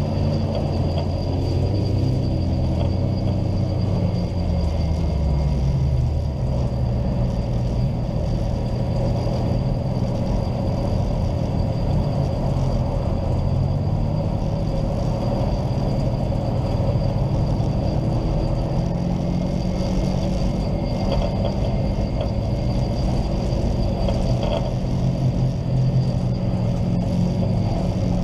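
Ice-racing car's engine heard from inside its stripped, roll-caged cabin, running hard with its revs rising and falling repeatedly.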